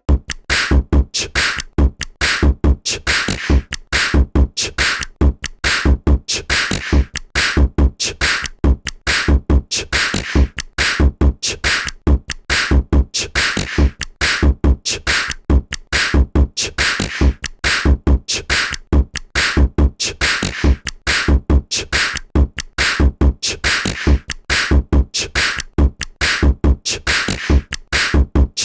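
A built-in CyanogenMod phone tone playing: a looping electronic beat of deep bass kicks and sharp, crisp hits at a fast, steady rhythm.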